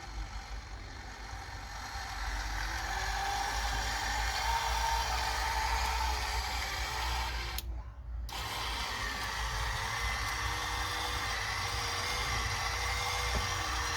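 Metal lathe running steadily, a motor hum with a wavering whine, getting louder about two seconds in and cutting out briefly about eight seconds in before resuming.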